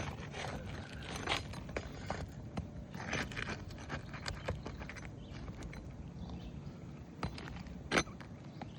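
Irregular scrapes and knocks of hand tools working under asphalt roof shingles to lift and loosen them, with one sharper knock near the end.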